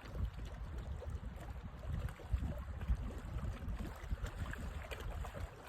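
Wind buffeting the microphone outdoors: a low, uneven rumble with a few faint ticks.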